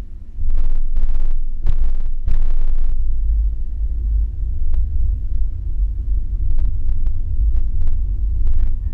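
Car travelling at motorway speed, heard from inside: a loud, steady low rumble of road and wind noise. A cluster of short, sharp bursts comes in the first three seconds, and a few more come near the end.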